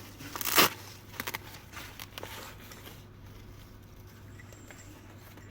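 A short, loud rustle of handling about half a second in, as small plastic accessories of a portable air compressor are rummaged through for the valve adapter, followed by a few light clicks. After that there is only a faint steady hum.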